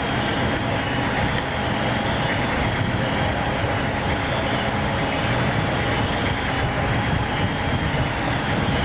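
Fire apparatus diesel engines and pumps running steadily: a continuous loud mechanical drone with a faint constant hum.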